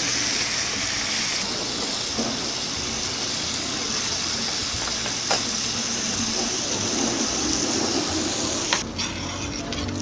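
Frozen pork belly slices sizzling on a hot grill plate in a steady, loud hiss, with a few faint clicks of metal tongs turning the meat. The sizzle drops off abruptly near the end.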